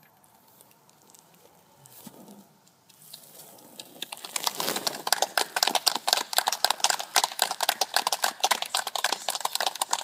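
A small audience clapping, starting about three seconds in and building to steady applause at the end of a reading.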